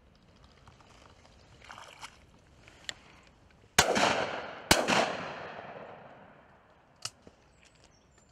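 Two shotgun shots fired in quick succession, a little under a second apart, each followed by an echo that rolls away over a couple of seconds.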